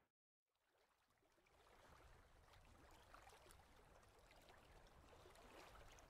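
Near silence: a brief dead gap, then a very faint, even background hiss fading in after about a second and a half.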